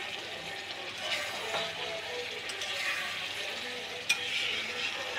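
A spatula stirring and scraping thick chicken curry in a kadhai, with the oil that has separated from the masala still sizzling. There is one sharp clink of the spatula against the pan about four seconds in.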